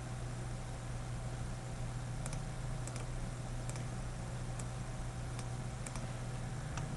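Scattered clicks from a computer mouse and keyboard, about seven, starting about two seconds in, over a steady low electrical hum.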